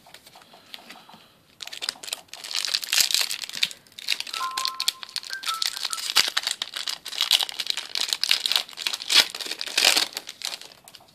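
Foil Yu-Gi-Oh booster pack wrapper being handled and opened, crinkling loudly with many sharp crackles. It starts about a second and a half in and stops shortly before the end.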